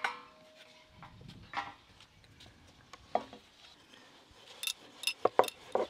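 Dough ball pressed into loose flour, then a wooden rolling pin worked on a wooden board, rolling out nimki dough. In the last second and a half there is a quick run of sharp light clicks and knocks.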